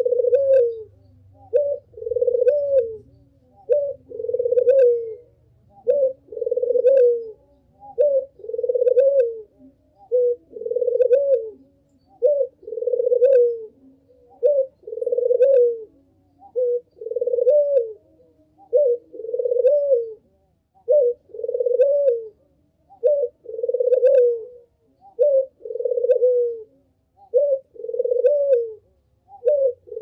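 Ringneck dove (puter) cooing over and over: a short note followed by a longer, rolling note, the phrase repeated about every two seconds.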